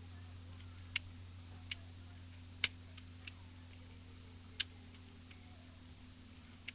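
Floppy Cube's plastic layers clicking as they are flipped during a solve: about seven sharp clicks at uneven intervals, the loudest about two and a half seconds in, over a faint steady low hum.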